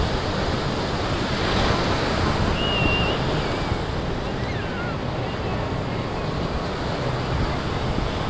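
Ocean surf breaking and washing up the sand in a steady rush, with sea wind buffeting the microphone.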